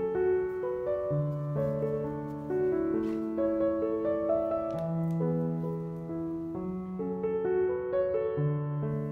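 Slow, gentle piano background music: sustained chords over a bass note that changes every second or two.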